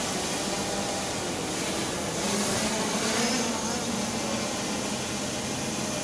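Hubsan H501M quadcopter's four propellers buzzing steadily as it hovers and descends, swelling slightly about two seconds in.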